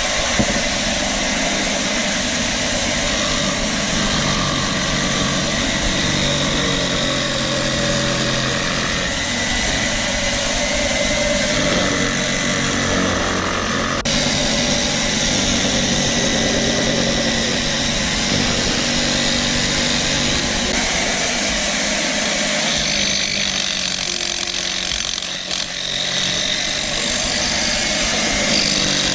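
Table-mounted jigsaw running steadily at a constant loud level.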